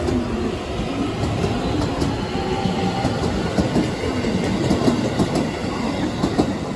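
JR West commuter electric train running along the station track: steady rumble with wheels clacking over rail joints and a wavering motor hum.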